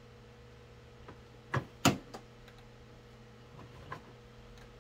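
Plastic parts of a Shark vacuum cleaner knocking and clicking as they are handled and tried together during assembly: two sharp knocks close together about a second and a half in, then a few lighter ticks.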